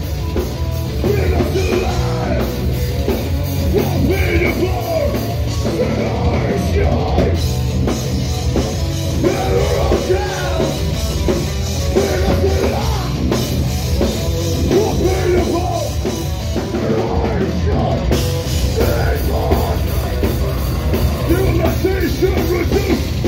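Metalcore band playing live and loud: heavy distorted guitars and bass over a driving drum kit, continuous with no breaks.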